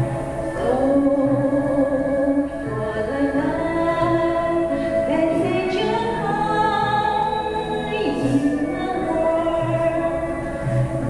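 A choir singing a slow song in long held phrases.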